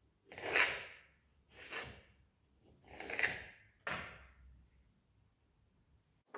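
Small kitchen knife cutting cucumber on a wooden cutting board: four short scraping strokes, each about half a second long, then quiet.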